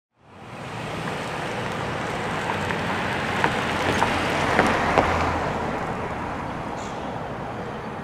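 Outdoor rushing noise, wind or passing traffic, that swells and then eases off, with a few sharp clicks around the middle. No siren tone is heard.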